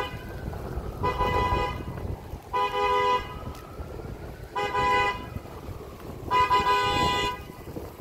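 A vehicle horn honking again and again: one blast ending right at the start, then four more, each just under a second long and about one and a half to two seconds apart, over a low traffic rumble.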